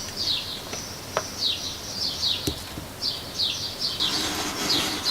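Small birds chirping: a quick run of short, high chirps that fall in pitch, several a second and overlapping.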